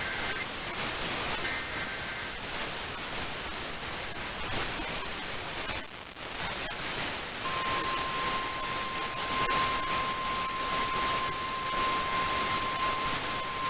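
Weather radio alert over heavy radio static: two short bursts of high warbling data tones (the alert's digital header) come early, then about halfway through a single steady alarm tone (the 1050 Hz weather radio warning tone) starts and keeps sounding. It signals the start of a new warning broadcast.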